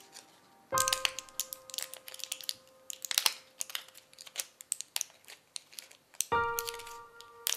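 Crinkling plastic and sharp irregular clicks of pills being pressed out of a blister pack, over sparse film-score music: a long-held note sounds about a second in and slowly fades, and another comes in about six seconds in.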